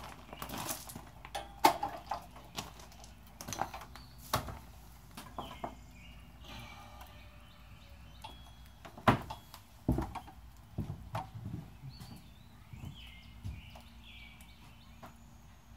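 Irregular knocks and clunks, a few of them sharp and loud, with birds chirping now and then.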